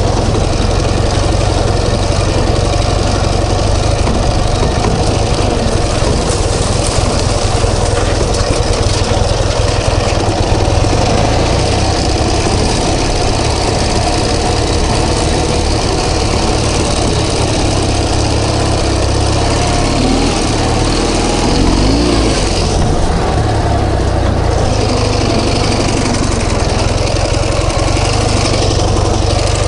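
Ural Tourist sidecar motorcycle's flat-twin engine running steadily while riding over rough field tracks, its revs rising and falling briefly a little over two-thirds of the way through.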